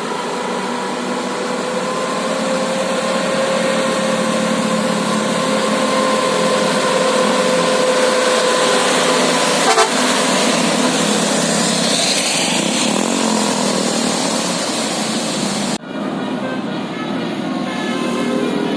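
Bus musical 'telolet' air horn holding one long steady note for about nine seconds over a loud background of road and crowd noise, stopping with a short click. After a cut, a few short horn notes sound.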